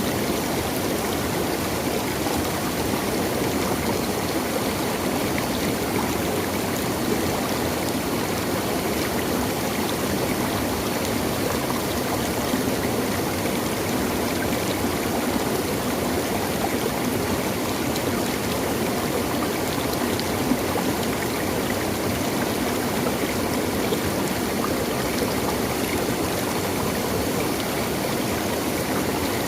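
A stream of water flowing and splashing, a steady rushing with bubbling over it and no let-up.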